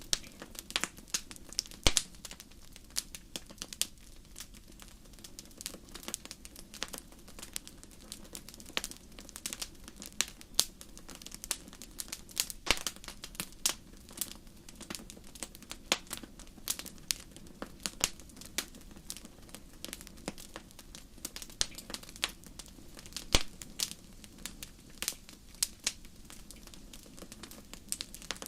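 Wood fire in a fireplace crackling: irregular sharp snaps and pops from the burning logs, a few much louder than the rest, over a faint low hiss of the flames.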